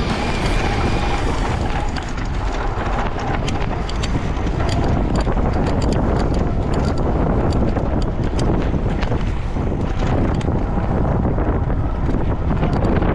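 Heavy wind buffeting on the microphone, a loud low rumble, with scattered sharp clicks through the middle.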